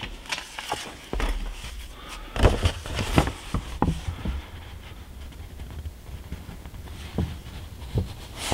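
Printed paper sheets rustling and crackling irregularly as they are handled and turned, with the loudest crackles between two and three and a half seconds in.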